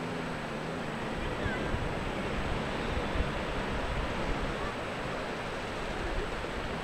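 Steady wind on the microphone mixed with the wash of surf on an open beach.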